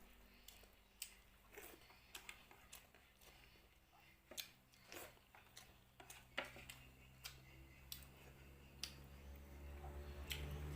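Quiet eating sounds: scattered soft clicks and smacks of chewing, about one or two a second, irregular. A low hum grows near the end.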